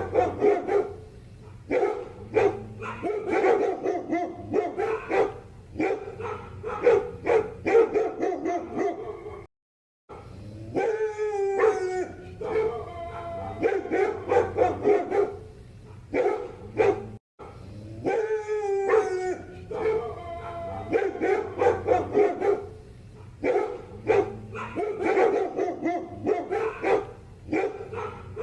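Poodle barking in rapid runs of short barks. Twice the sound drops out briefly, and each time a few high, falling whines or yelps follow before the barking resumes.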